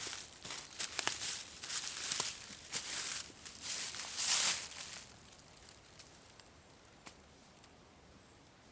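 Footsteps crunching irregularly over the ground, stopping about five seconds in.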